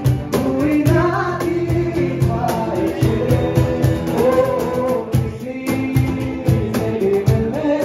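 A male singer singing a song into a handheld microphone, backed by a strummed acoustic guitar and a steady beat.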